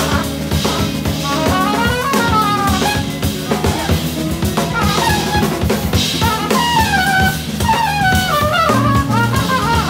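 Trumpet solo over a live funk band, the trumpet playing fast melodic runs that climb and fall, with drum kit and electric bass underneath.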